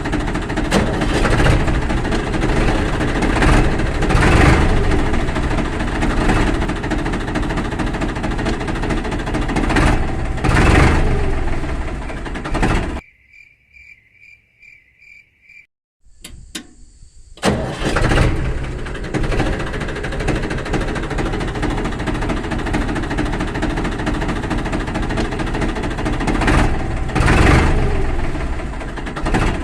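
A small engine running with repeated swells, broken off about halfway through by a few seconds of rapid, evenly pulsing electronic beeping, then running again.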